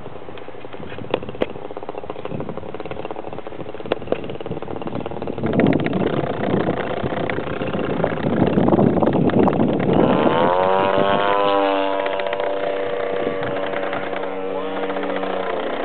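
Engine of a radio-controlled model plane in flight. A louder rushing noise comes from about five to ten seconds in. After that the engine's tone slides down in pitch and then holds steady until near the end.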